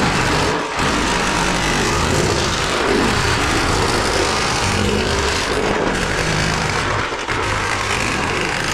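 Battery-powered power tool running loudly and steadily, dipping briefly under a second in, and stopping near the end.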